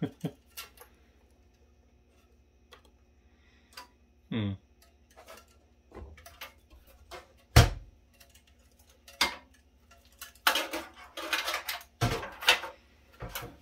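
Hands working cables and a metal hard-drive cage in a server chassis: scattered small clicks as connectors are handled, one sharp knock about halfway through, then a couple of seconds of metal clattering and scraping near the end as the drive cage is fitted back into the case.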